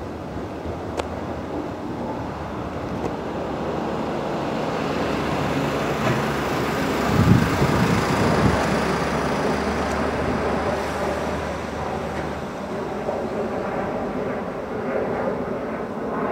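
Class 319 electric multiple unit running over the junction, its wheels rumbling on the rails, with a few low thumps about seven to eight seconds in as the last carriages cross. A low steady hum cuts out after about twelve seconds and the rumble fades away.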